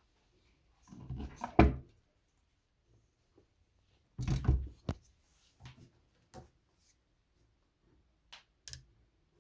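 Irregular knocks and clatter from something being handled: a cluster about a second in, a louder one about four seconds in, then a few lighter clicks and two sharp ticks near the end.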